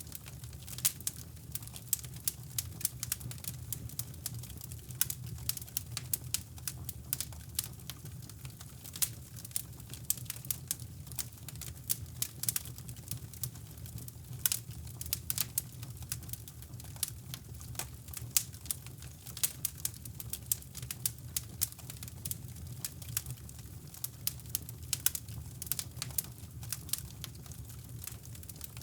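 Wood fire in a fireplace crackling, with irregular sharp pops and snaps throughout, over a steady low rumble of brown noise.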